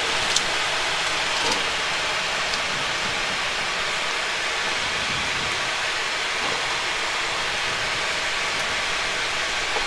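Steady rushing cockpit noise of a Boeing 737-800 rolling along the runway after touchdown: engine and airflow noise heard from the flight deck.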